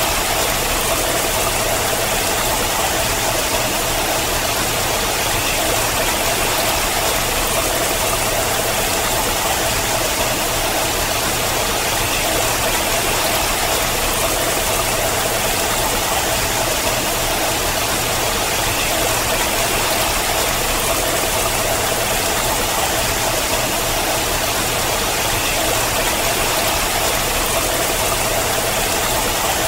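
Water falling down a rock face in thin sheets and streams, splashing onto the rock in a steady, unchanging rush.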